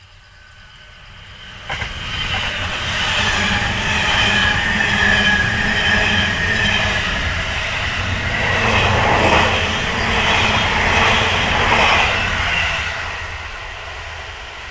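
Electric limited express train passing close by at speed, its wheels running on the rails. The sound builds, jumps up sharply a couple of seconds in, stays loud for about ten seconds, then eases off near the end.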